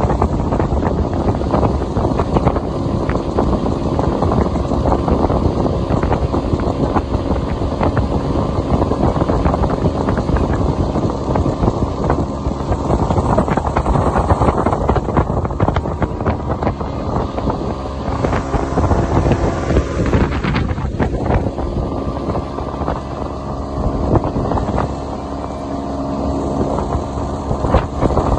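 Outboard motor of a small aluminium fishing boat running steadily under way, with wind noise on the microphone. There is a brief dip in the motor's sound about three quarters of the way through.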